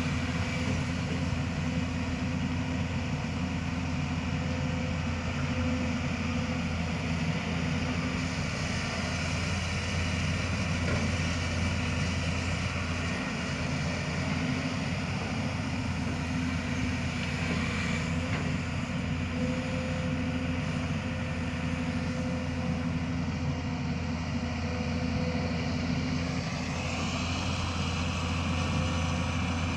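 Hyundai long-reach excavator's diesel engine running steadily with a low hum while it works its boom and bucket. A higher whine steps up in pitch near the end.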